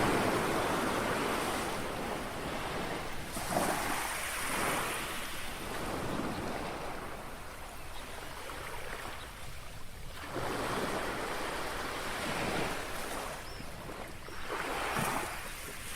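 Small sea waves lapping on a shore. Each wash of water swells up and fades away, about four times, several seconds apart.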